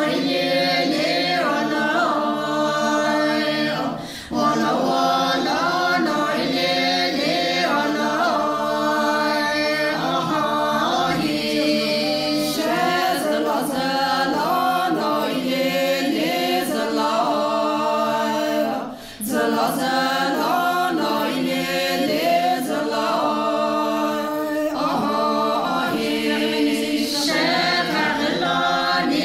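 A group of women singing together a cappella, with no instruments. The song pauses briefly about four seconds in and again a little past the middle.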